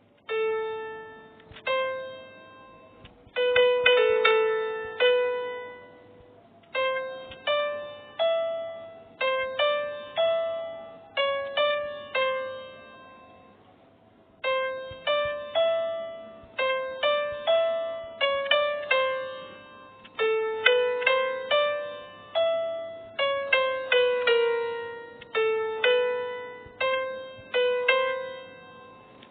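Piano playing a melody of single struck notes, each ringing out and fading, with a short pause about halfway through.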